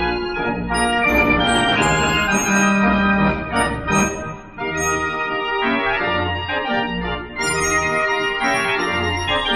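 The Great Gavioli, a Dutch street organ (a Gavioli fair organ), playing a tune: pipe melody and chords over recurring bass notes, with sharp percussion strikes at several points.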